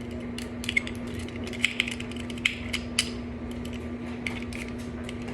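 Small metal clicks and scrapes of lock picks being worked into a storage padlock's keyway, coming irregularly, most of them in the first three seconds. A steady low hum runs underneath.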